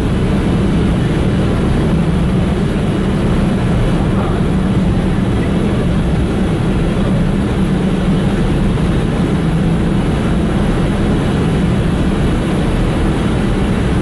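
Ship's engine-room machinery running with a loud, steady low drone that does not change, as heard in the steering gear room alongside the running main engine.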